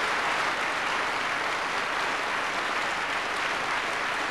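Large theatre audience applauding, a dense, steady clapping at the close of a performance.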